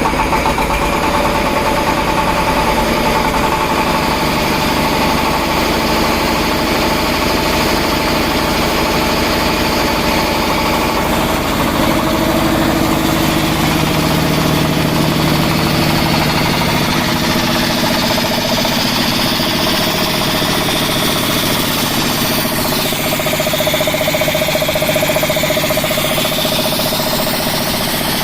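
Fumitsu 24 HP engine running steadily, driving a large high-pressure air compressor pump. The tone of the machine changes about twelve seconds in.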